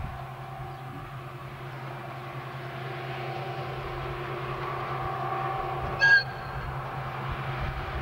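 Diesel locomotive hauling a passenger train on a metre-gauge line, its engine drone growing steadily louder as it approaches. About six seconds in it gives a single very short horn toot.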